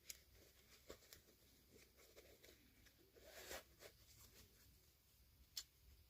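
Faint handling sounds of a miniature toy unboxing: a few light clicks of small plastic pieces and a brief rustle of packaging about halfway, with one sharper click near the end.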